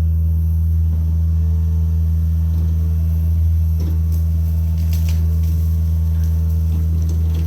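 John Deere mini excavator's diesel engine running at a steady speed, a constant low hum, with a few faint clicks or knocks near the middle.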